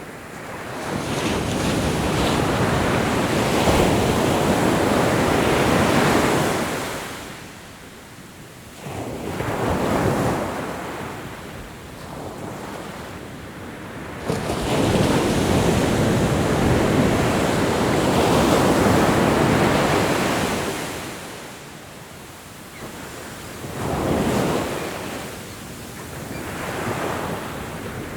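Ocean surf breaking in slow surges, each wave swelling into a hissing roar and fading away. Two long, loud breakers stand out, one near the start and one in the middle, with smaller waves between them and toward the end.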